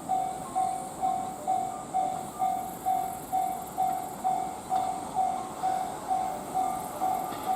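Japanese level-crossing warning bell ringing steadily, a single electronic ding about twice a second, while an approaching train's rumble grows louder in the second half.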